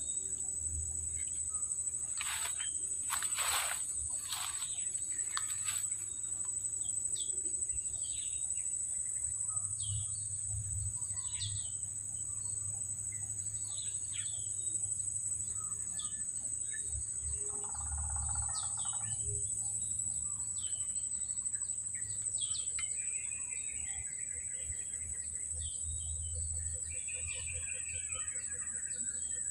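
Tropical swamp-forest ambience: a steady high-pitched drone of insects runs throughout, with birds chirping and calling over it. Several loud, sharp calls come in the first few seconds, and trilling calls come later.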